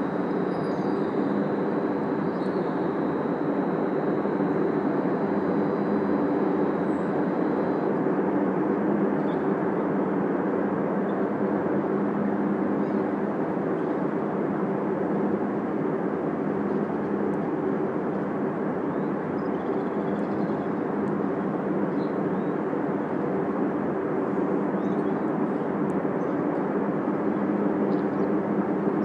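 Aircraft engine run-up at an airport heard from a distance: a steady, unbroken roar that echoes off surrounding buildings, with a faint low hum running through it.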